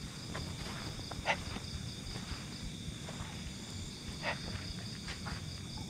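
Steady high-pitched chorus of crickets and other night insects, with a few faint short sounds about a second and about four seconds in.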